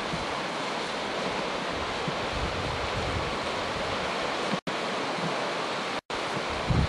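Steady rushing noise of surf and wind, with low buffeting from wind on the microphone. The sound cuts out completely twice, briefly, in the second half.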